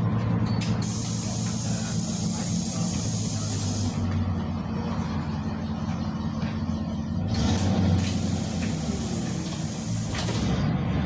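Cabin sound of a PAZ-320302-22 bus on the move: its ZMZ-52450A petrol V8 drones steadily, with road and body noise. A high hiss comes in twice, for about three seconds each time.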